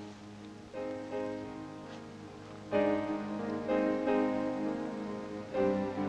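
Instrumental background music: slow sustained keyboard chords that change every second or two, growing louder about three seconds in.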